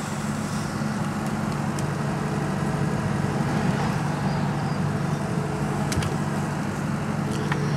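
Steady low drone of an engine running, with a few faint clicks.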